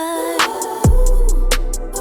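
Background music from a gospel R&B song: held keyboard chords, sharp snare or clap strikes, and a deep bass hit that drops in pitch a little under a second in.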